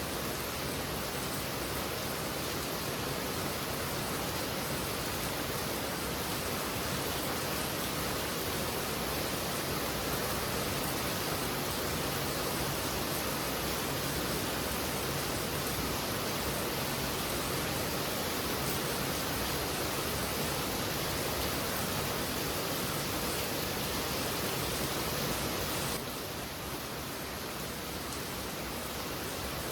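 Heavy rain falling, a dense steady hiss. About four seconds before the end it turns slightly quieter and duller.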